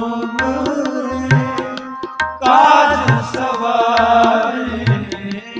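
Kirtan music: tabla playing a steady rhythmic pattern with deep bass strokes under a sustained held-note melodic accompaniment. About halfway through, a wavering sung note swells in briefly and is the loudest part.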